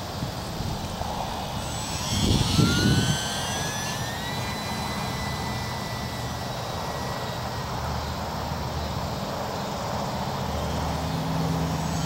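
Whine of the electric motor and propeller of an E-flite UMX Yak 54 micro RC aerobatic plane in flight. The whine rises in pitch about two and a half seconds in and then holds steady, over a steady background hiss. A brief loud rush of noise comes about two seconds in.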